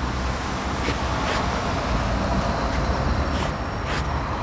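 Road traffic passing on a wet street: tyres hissing on wet asphalt over a low engine rumble, slowly growing louder, with a few faint clicks.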